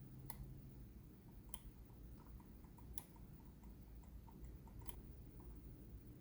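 Scyrox V8 gaming mouse buttons clicking: four crisp single clicks spaced one to two seconds apart. Between them, from about two seconds in, comes a run of fainter, quicker ticks.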